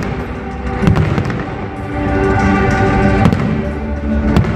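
Aerial fireworks going off, with a few sharp bangs about a second in, midway and near the end, over music with long held tones.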